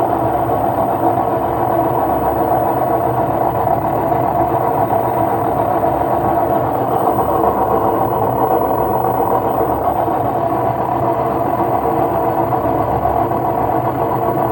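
LG front-loading washing machine drum spinning with a loud, steady rumble, the sign of worn-out drum bearings.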